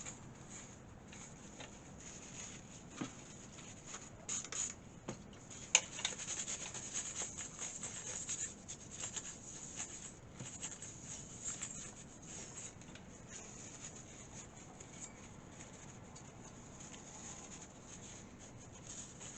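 Faint, uneven rubbing and scratching of a wipe being worked over a surface to clean off old thermal paste, with small clicks and one sharper click about six seconds in.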